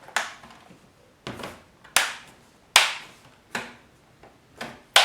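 Plastic bottom cover of a Lenovo V155-15 laptop being pressed onto its body, its clips snapping into place one after another: about seven sharp clicks at uneven intervals, the loudest near the middle and at the end.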